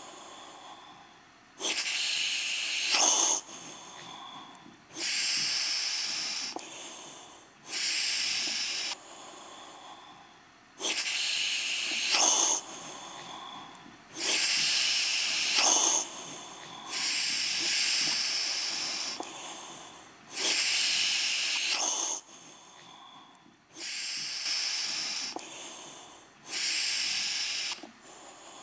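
Heavy breathing close to the microphone: nine loud, hissing breaths, each a second or two long and about three seconds apart, with quieter breaths between them.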